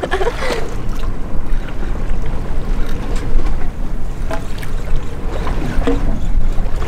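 Loud low wind rumble on the microphone over water washing along the side of a drifting boat, with brief faint voices twice.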